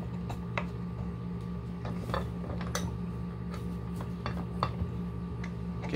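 Scattered small metallic clicks and ticks as a PL-259 UHF connector is twisted and tightened onto RG-58 coax, over a steady low hum.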